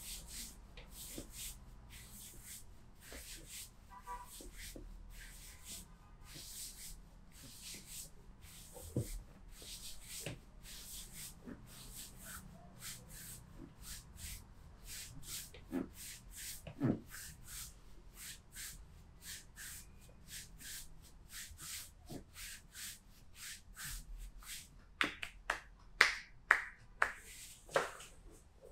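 Hands massaging a back: brisk rubbing strokes at about two to three a second, with a run of louder, sharper hand strikes near the end.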